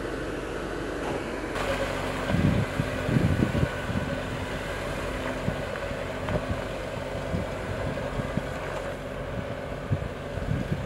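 Jeep Wrangler 4xe Rubicon X crawling slowly over rock, a steady drivetrain hum, with wind buffeting the microphone in low thumps.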